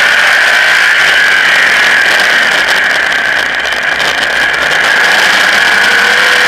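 Modified race car's engine running hard under way, heard from an onboard camera, loud and steady, easing off slightly around the middle.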